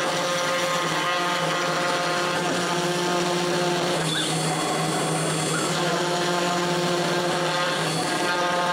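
CNC router spindle running as it cuts wood, a steady whine whose pitch shifts slightly about four seconds in and again near eight.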